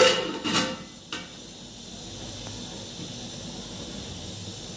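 A steel lid knocks against a large aluminium cooking pot, three metallic strikes in the first second or so, followed by a steady hiss from the gas burner and the steaming pot of rice.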